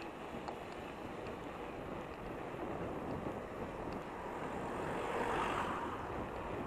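Steady road noise from riding a bicycle along a street, with a passing vehicle's tyre noise swelling and fading about five seconds in.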